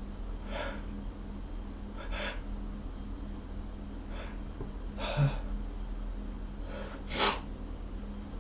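A man sniffing and taking sharp breaths through the nose as a sneeze tickle builds: about five short noisy sniffs a second or two apart, the loudest near the end.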